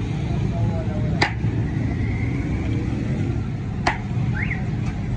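Steady low rumble of busy street traffic, with two sharp clicks about two and a half seconds apart.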